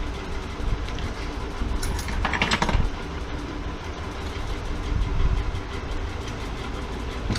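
Steady low rumble with a short flurry of sharp clicks and rattles about two seconds in, and a few scattered clicks elsewhere.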